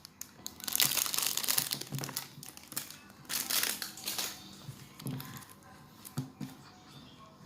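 Plastic packaging crinkling as it is handled, with a long burst about a second in and another around three and a half seconds in, then quieter rustling.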